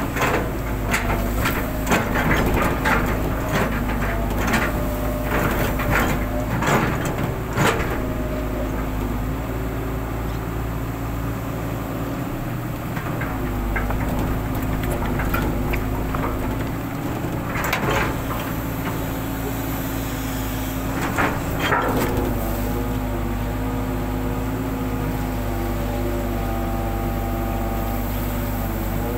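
Hitachi long-arm excavator's diesel engine running steadily under hydraulic load, its note dipping and rising as the arm and bucket are worked. Sharp knocks and clanks of the working arm and bucket come several times in the first eight seconds and twice more in the second half.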